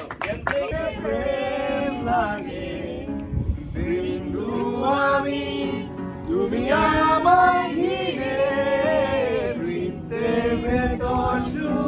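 A group of men and women singing a song together, voices held on long notes, accompanied by an acoustic guitar.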